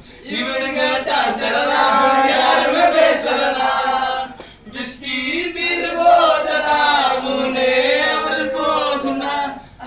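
A man singing into a microphone: two long, wavering sung phrases with a short break about four and a half seconds in.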